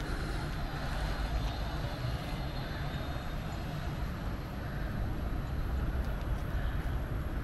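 Steady low rumble of outdoor city ambience, with no single event standing out.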